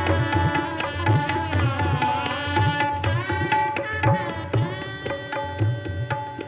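Shehnai playing an ornamented melody with sliding, bending notes over a hand-drum accompaniment that beats steadily underneath.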